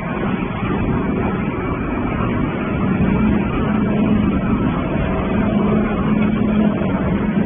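Industrial waste shredding line running: shredder and belt conveyor carrying shredded decoration waste, a steady dense machine noise with a constant low hum.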